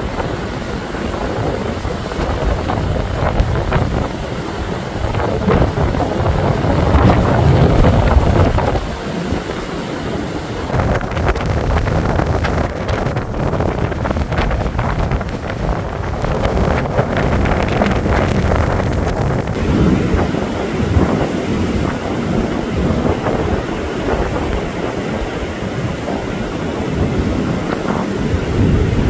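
Blizzard wind gusting hard against the microphone: a loud, continuous rushing and buffeting that swells and eases, strongest about a quarter of the way through.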